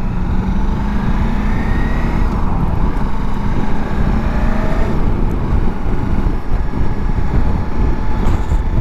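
Ducati Multistrada V4S motorcycle under way: its V4 engine running beneath steady wind noise, the engine note rising slightly about a second in.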